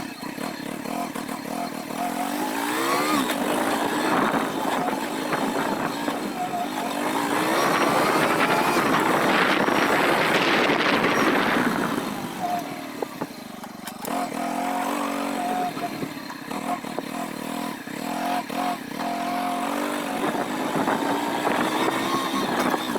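Engine running with its pitch rising and falling, growing loudest about halfway through and then dropping back.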